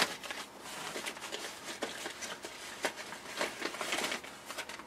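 Small cardboard vacuum-tube boxes rustling, sliding and knocking together as hands dig through a carton full of them, in irregular light clicks and scrapes.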